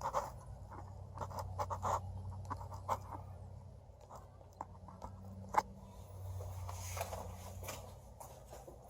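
2007 Subaru STI's 2.5-litre turbocharged flat-four idling roughly: a low hum that wavers in strength, with irregular sharp clicks and scraping sounds over it. The owner has misfire codes for cylinders 1 and 3.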